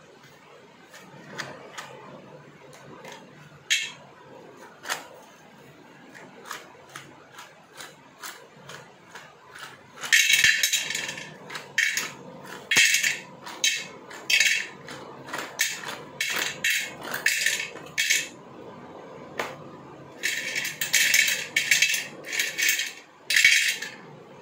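Slate pencils dropped into an empty iron kadai, clicking and clattering on the metal. Single sharp clicks come at first; from about ten seconds in, handfuls tumble in with loud bursts of rattling and ringing.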